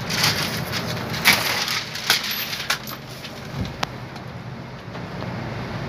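Crinkling and rustling of foil-faced duct insulation being handled, with several sharp clicks, over a steady low machine hum.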